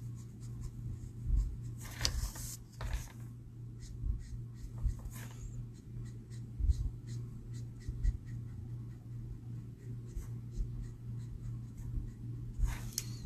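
Marker nib rubbing and scratching across cardstock in irregular short colouring strokes, over a steady low hum.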